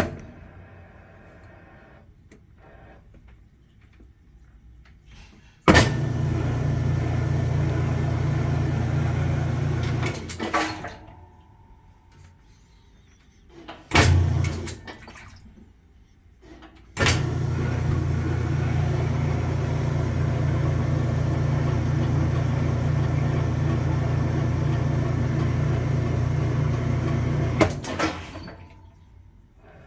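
Maytag Centennial top-load washing machine switched on with a click and running with a steady low hum under a hiss for about five seconds, then stopping. A short burst follows, then it starts again with a click, runs about ten seconds and winds down. The machine runs only on its rinse/spin settings and will not run on wash.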